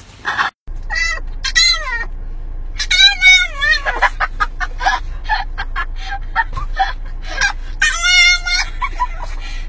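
Small white fluffy dog howling in a string of high, wavering, cat-like cries, the two longest about three and eight seconds in, over the low hum of a car cabin.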